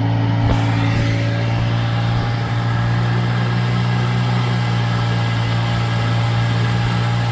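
Car engine running at a steady, even pitch, a constant drone with no change in speed.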